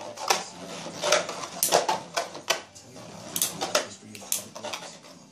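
Two Beyblade spinning tops, Beat Lynx and Fang Leon, battling in a plastic stadium: about eight sharp clacks at irregular intervals as their metal wheels collide.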